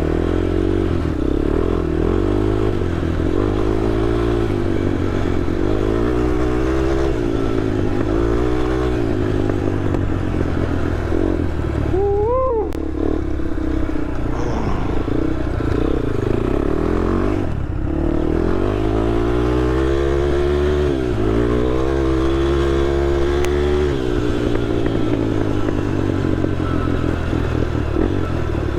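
Honda TRX ATV engine running under way, its pitch repeatedly rising and falling as the throttle opens and closes.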